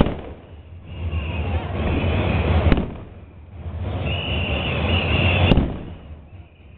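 Busy outdoor street procession noise: a heavy low rumble and high wavering tones that swell and fade in waves, with two sharp cracks about three seconds apart.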